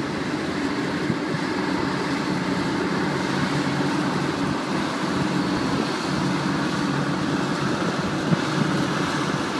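A large farm tractor's diesel engine running steadily as it pulls a bale wagon that is lifting a big square alfalfa bale onto its load.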